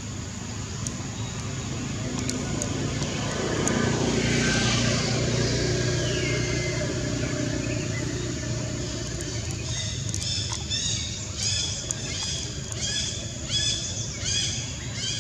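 A passing motor vehicle's engine swells to a peak about four seconds in, then fades. Near the end a short, high-pitched animal call starts repeating about twice a second.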